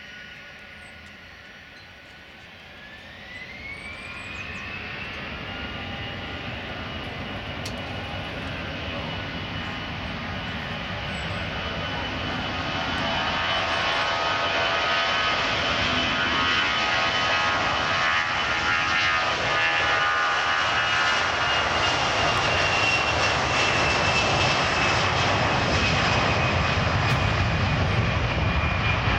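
Airbus A321-211 jet engines spooling up to takeoff power. About three seconds in, a rising whine climbs and settles into a steady high whine over a growing roar. The sound gets louder again about twelve seconds in as the aircraft accelerates down the runway, and the whine drops slightly in pitch near the end as it passes.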